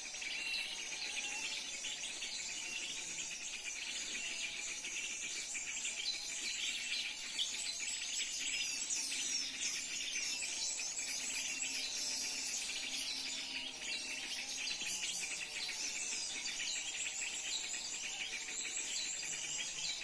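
Many small birds chirping and twittering in quick, overlapping calls over a steady insect hum, with the chirping busiest in the second half.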